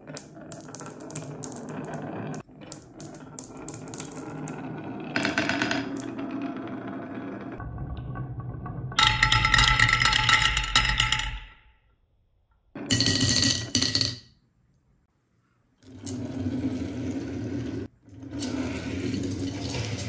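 Glass marbles rolling down a wavy wooden slope, rumbling and clicking against the wood and each other. About nine seconds in they drop into a toy dump truck's plastic trailer with a louder, ringing clatter, and more rolling and clattering follows in short bursts with brief silent gaps.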